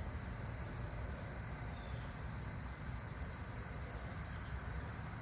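Steady, high-pitched chorus of crickets, with a faint low hum underneath.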